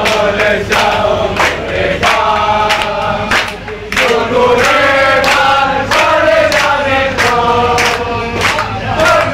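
A crowd of male football supporters singing a chant together in unison, loud, with hand claps keeping a steady beat about twice a second.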